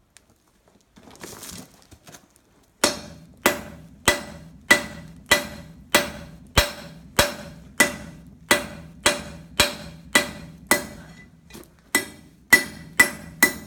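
Blacksmith's hammer striking a piece of forge-heated metal, a steady run of about nineteen ringing metal-on-metal blows, a little under two a second, quickening slightly near the end. A short rustle comes first, about a second in.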